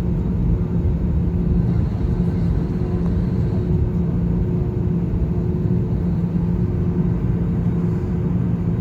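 Steady low rumble of an airliner cabin on the ground after landing, with a constant low hum from the aircraft's engines and systems.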